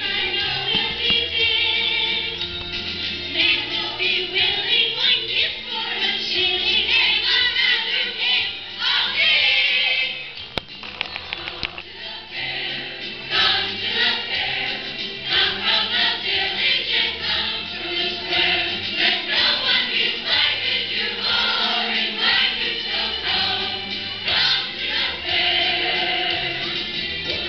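A children's chorus sings a song together over an instrumental accompaniment, with a brief lull about ten seconds in before the singing picks up again.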